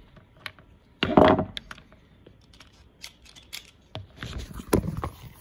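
Scattered clicks, scrapes and rattles of small screws being driven by hand into the black housing of a Roland CJ-500 ink pump. A louder scraping rustle comes about a second in, and a cluster of clicks comes near the end.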